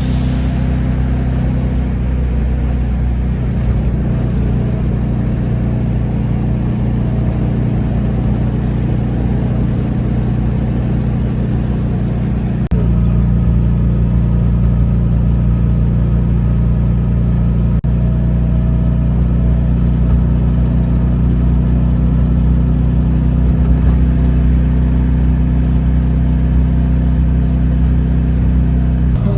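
Classic Fiat 500's small air-cooled two-cylinder engine running steadily at highway speed on a test drive after the engine was taken apart, getting louder about halfway through.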